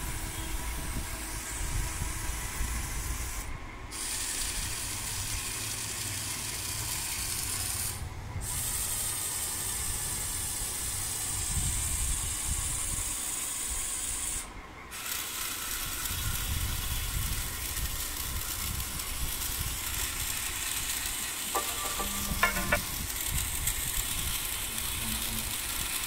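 A homemade dishwashing machine running, with small DC motors spinning sponge scrubbers against steel plates and water running over them, making a steady hissing, rubbing wash noise with a low rumble beneath.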